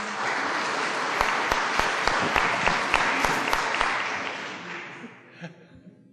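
Audience applauding, with a few sharp nearby claps standing out, dying away about five seconds in.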